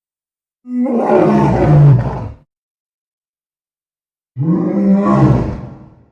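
Two roars of the kaiju Balkzardan, a sound effect built from big cat roars of lions, tigers and ligers. The first starts just under a second in and lasts nearly two seconds; the second comes after about two seconds of silence and fades out near the end.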